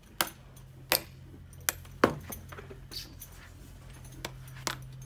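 Sharp metallic clinks and taps from a farrier's tools working on a horse's hoof, about ten strikes at an irregular pace. The loudest comes about two seconds in.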